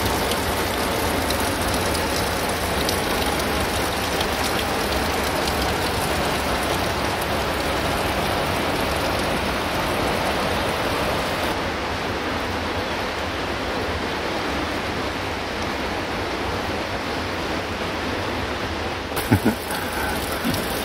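Steady rushing of water, with a few low bumps near the end.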